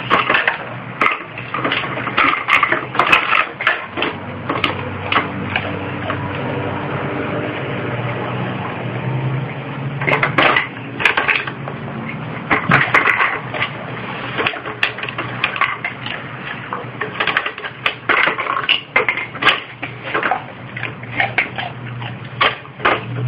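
Empty plastic drink bottles hung on a metal rod clattering and knocking as a bull terrier noses and turns them. The clicks and rattles come in irregular bursts, with a quieter spell in the middle.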